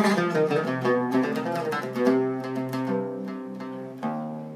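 Zeryab Premium 2 Syrian oud being plucked: a run of quick notes that slows into a few longer ringing notes, with a new stroke near the end.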